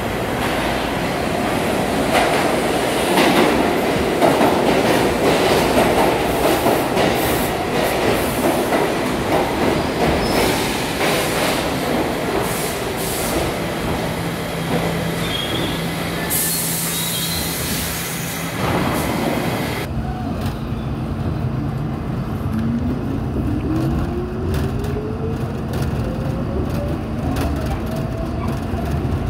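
A New York City subway train rumbles into the station with wheel squeal. From about 20 s in, the sound becomes duller as the train is heard from inside, and its motors give a steadily rising whine as it accelerates away.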